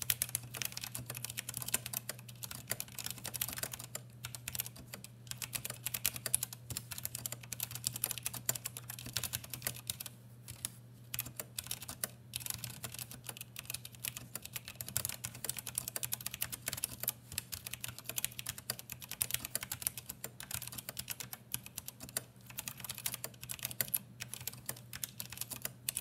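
Typing on a CannonKeys Practice75 mechanical keyboard fitted with unlubed Gateron Brown tactile switches and PBT keycaps: a fast, steady run of keystrokes with a few short pauses. The switches sound scratchy because they are not lubed.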